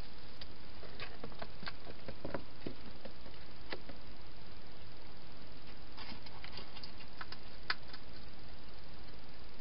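Steady hiss with scattered small clicks and crackles from hedgehogs foraging and eating, in two clusters: about a second in and again about six seconds in.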